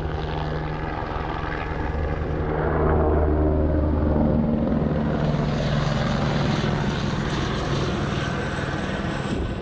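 Aircraft flying low overhead: a steady engine and propeller drone that grows louder about three seconds in and holds until near the end.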